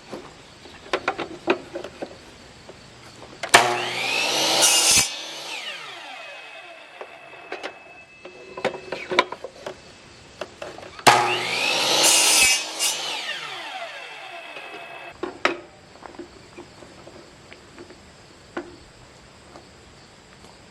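Power saw cutting small pieces off old tobacco sticks, twice: each time the saw spins up, cuts for a second or two, then winds down with a falling whine. Wooden clicks and knocks in between as the cut pieces are handled.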